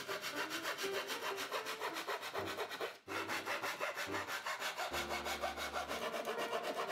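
Japanese pull saw crosscutting an American walnut board in quick, even rasping strokes, about five a second, with a brief break about three seconds in.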